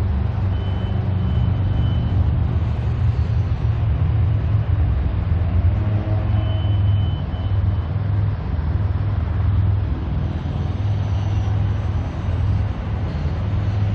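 Steady low outdoor rumble, with a faint thin high tone heard twice.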